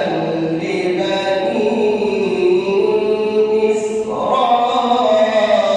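A man reciting the Quran in melodic tajweed style, drawing out long held notes; his pitch steps up about four seconds in.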